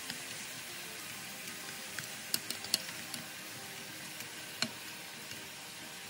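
Mushrooms sizzling as they stir-fry in sesame oil in a pan, with a few sharp clicks about two to three seconds in and once more near five seconds.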